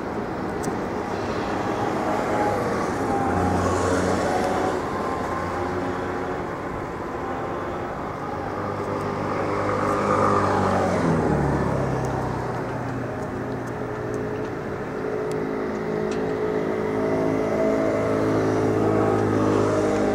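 JR West electric commuter train moving slowly, its motors whining as several steady tones over a low rumble. One whine falls in pitch about ten to twelve seconds in.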